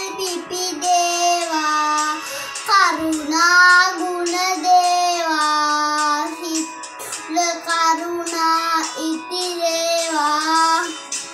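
A child singing a Sinhala Buddhist devotional song (bathi gee), holding long notes and gliding between them.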